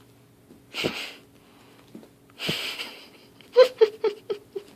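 A woman laughing under her breath: two wheezy, breathy exhales, then a quick run of short giggles near the end.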